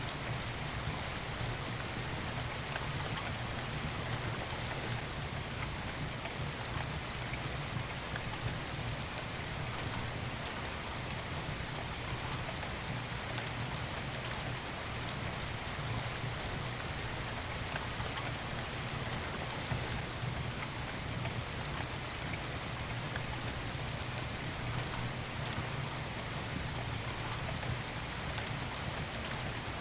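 Steady rain falling, an even hiss, with a few faint clicks.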